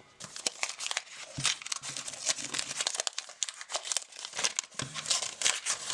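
Packaging being unwrapped by hand: an irregular run of crinkling and crackling rustles, with some tearing.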